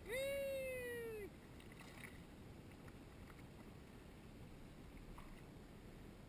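A single high, wordless vocal cry, rising quickly and then sliding slowly down, lasting about a second at the start.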